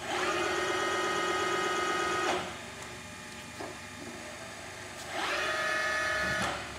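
Kiheung KMB-U5 bed mill's power-fed table drive whining steadily in two runs, the first about two seconds and the second about a second and a half, each starting and stopping abruptly; the second run is higher in pitch.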